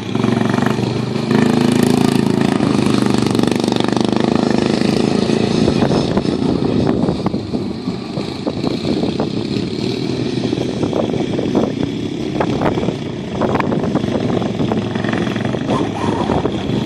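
Briggs and Stratton 12.5 hp riding lawn mower engine running hard at full throttle, with rattles and knocks from about six seconds in.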